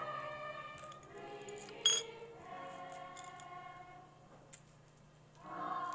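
Choral music with held notes from an old film's soundtrack playing in the room, dipping and swelling again near the end, with a single sharp clink of a small hard object about two seconds in.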